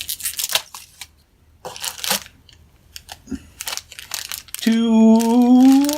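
Packaging crinkling and rustling in short bursts as accessories are lifted out of a motherboard box, followed near the end by a long, drawn-out spoken word.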